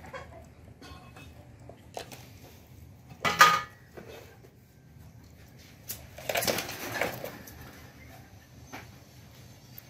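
Household handling noises: an aluminium wok is set down on a floor mat with a short clatter and faint ring about a third of the way in, then tissue paper rustles as it is pulled from a box and stuffed into a portable stove's burner.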